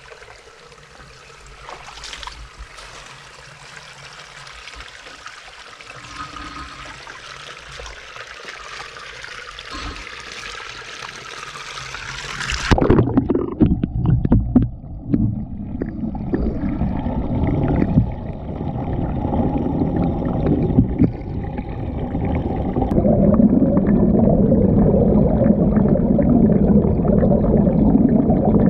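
Water swirling and splashing in a homemade hydrocyclone made from a Weber kettle bowl, a steady hiss. About thirteen seconds in, the microphone goes under the water: with a few knocks the sound turns suddenly muffled, then becomes a louder, low underwater rumble of churning water that grows toward the end.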